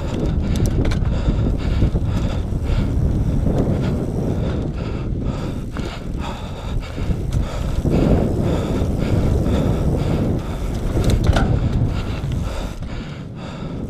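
Wind buffeting the microphone and tyres rolling over a dirt trail as an enduro mountain bike descends singletrack, with frequent short clicks and rattles from the bike over bumps.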